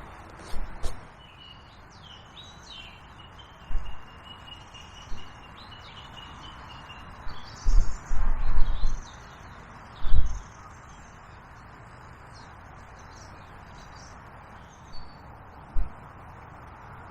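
Small birds chirping and twittering in short phrases, busiest in the first half, over a steady outdoor hiss. Several low thumps break in, the loudest about eight to ten seconds in.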